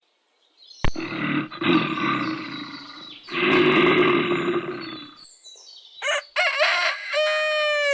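A series of different animal calls one after another: two long, rough calls, then a short wavering call, and a clear, held call near the end.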